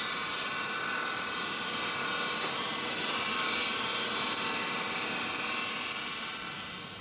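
Steel bar being ground against a spinning abrasive wheel: a steady, high grinding hiss with a whine running through it, fading away near the end.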